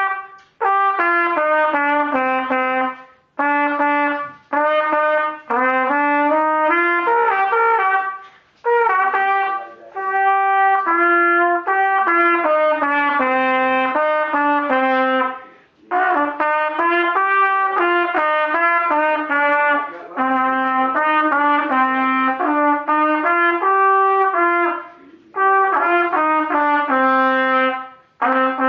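Trumpet played solo and unaccompanied: a melody of held notes in phrases, with short breath pauses between them.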